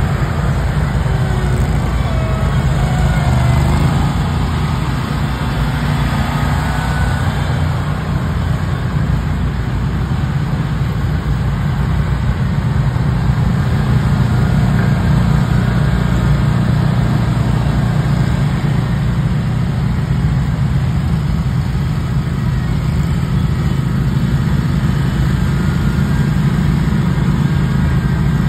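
Stand-on zero-turn mower engine running steadily, a low, even hum with no revving.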